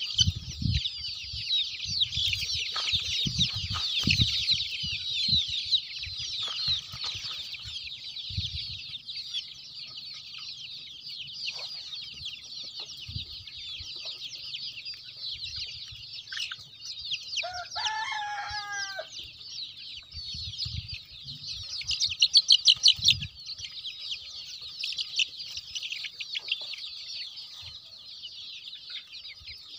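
A large flock of young native (naatu) chickens peeping densely and without pause, with one short crow-like call from a young cockerel about halfway through. A louder rapid run of peeps follows a few seconds later.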